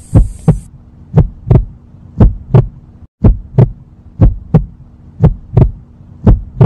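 Heartbeat sound effect: paired low thumps, about one lub-dub a second, over a faint steady hum.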